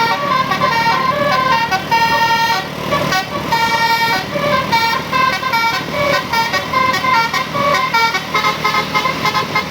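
Basuri-style multi-tone bus horn (klakson telolet) playing a melody of short horn notes that step up and down in pitch.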